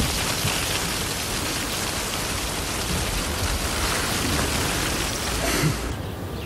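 A steady, even rushing hiss with no distinct events, which drops off suddenly about six seconds in.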